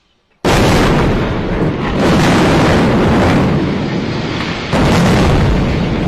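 Loud, continuous rumbling roar of a collapsing skyscraper tower, breaking in suddenly about half a second in after a brief silence. It jumps abruptly in level about two seconds in and again near five seconds, as where recordings are spliced together.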